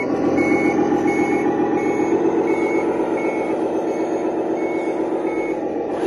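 Sound module of a 1/14 LESU RC tractor truck playing a simulated diesel engine running, with a reversing beeper sounding about three times every two seconds as the truck backs up.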